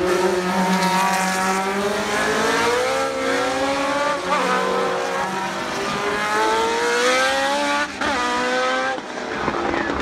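Historic Formula 1 cars' Cosworth 3.0-litre V8 engines accelerating hard past, the pitch climbing and dropping sharply with upshifts about four and eight seconds in.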